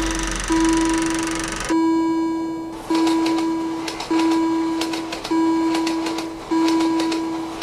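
Cartoon railroad-crossing warning bell ringing a single-pitched ding about every 1.2 seconds, each stroke fading before the next. A hissing noise sits over the first couple of strokes.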